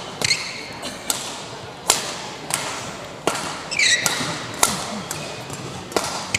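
Badminton rally: rackets hit a shuttlecock back and forth in sharp cracks about once a second. A few high squeaks from court shoes come about four seconds in.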